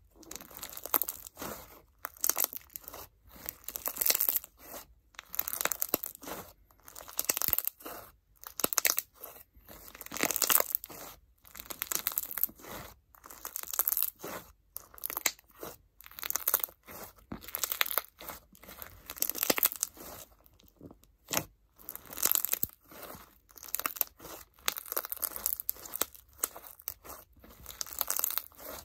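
Clear crunch slime with block-shaped crunch pieces being squeezed and kneaded by hand, giving crackly crunching bursts about once a second, with short pauses between squeezes.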